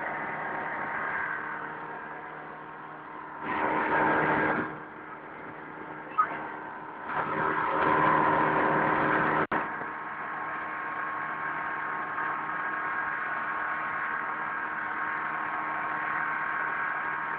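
Speedboat engine running steadily at cruising speed, a constant droning hum. Twice, for about a second a few seconds in and again for two or three seconds in the middle, a louder rushing noise of wind and water swells over it.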